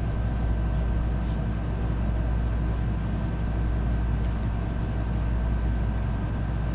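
Steady low machine hum with a thin, constant high whine, like a fan or air-conditioning unit running, with a few faint small clicks about a second in.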